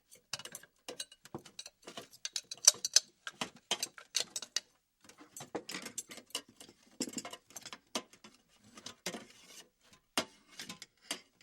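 Utensils being moved about and knocking together, giving a dense run of irregular clicks and clatters, with a short pause about five seconds in.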